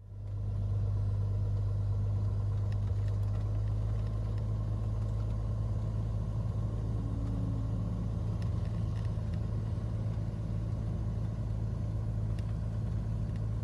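Cessna 182's piston engine running steadily, heard inside the cockpit as an even, low hum.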